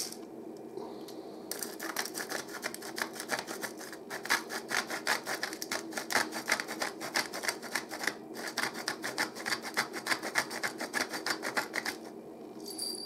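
Salt shaker shaken rapidly and steadily over a glass of water, salt grains rattling inside it with each shake, starting about a second and a half in and stopping about a second before the end.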